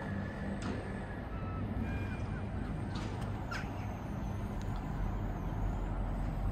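Street ambience: a steady low traffic rumble with a motor-like hum underneath, and a few brief bird calls and chirps in the first few seconds.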